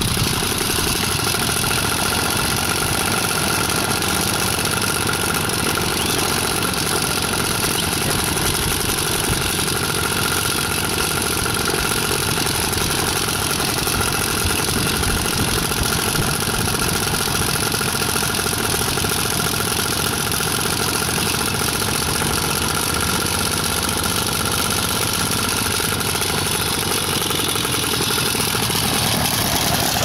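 Paramotor engine idling steadily at an even level.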